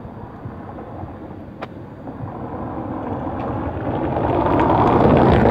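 A road vehicle approaching along the street, its tyre and engine noise growing steadily louder, loudest near the end.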